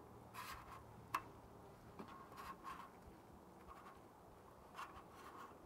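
Near silence with faint, scattered rustles and a few soft clicks: hands rolling a nori sheet around a filling to make a seaweed burrito.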